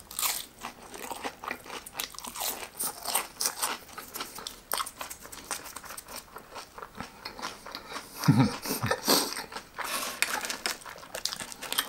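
Close-up eating sounds of biting into and chewing a crispy breaded cheese pork cutlet (katsu): many small crunches of the fried crust, with a brief low 'mm' from the eater a little past eight seconds in.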